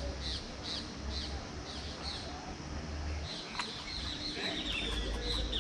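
Bird chirping: a quick series of short high notes over the first two seconds, then a run of falling chirps in the second half, over a steady low rumble.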